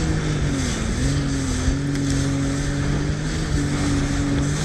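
Jet ski engine running hard at speed, its pitch dipping briefly in the first second before holding steady. Rushing water spray and wind noise over the head-mounted microphone.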